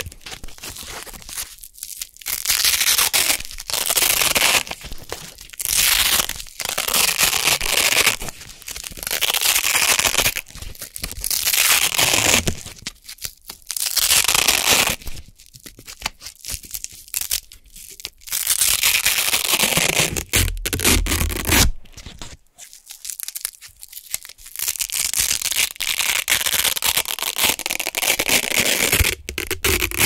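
Hook-and-loop (Velcro) circles being peeled apart close to the microphone, giving crisp, crunchy rips. The rips come over a dozen times, each about a second long, with short pauses in between.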